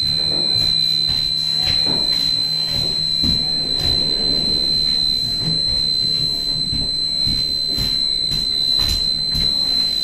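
Advanced MxPro fire alarm panel's internal buzzer sounding one steady, continuous high-pitched tone, the panel's warning that it is in fire condition.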